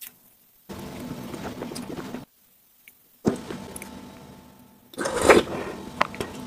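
Close-miked eating sounds from spooning up a soft cream and black sesame dessert, with a few sharp clicks near the end, broken by two stretches of dead silence.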